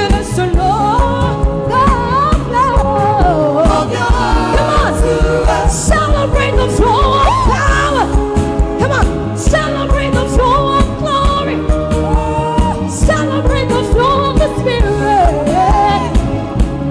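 Upbeat gospel song playing, with a steady beat and a gliding melodic line of singing that carries no clear words.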